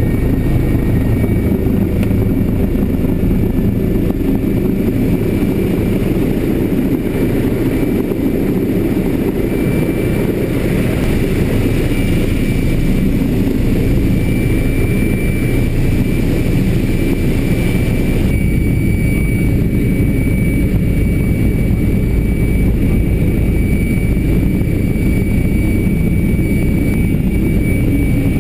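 Steady, loud, low rumbling drone of a sci-fi spacecraft engine sound effect, with a faint thin high tone over it; the upper hiss drops away about two-thirds of the way through.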